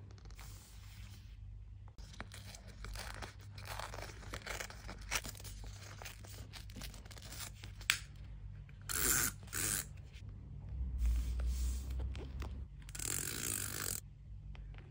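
Paper rustling and scraping as decorative scrapbook papers are handled, rubbed with a handheld adhesive applicator and pressed flat. Several louder scraping strokes come in the second half.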